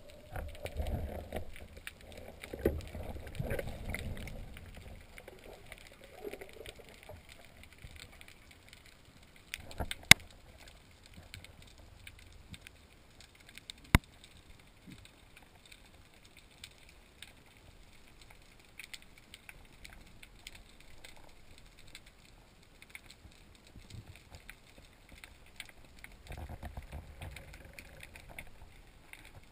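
Underwater sound through an action camera's waterproof housing: low rumbling of water and the diver's movement in the first few seconds and again near the end, with faint crackling throughout. Two sharp clicks stand out, about ten and fourteen seconds in.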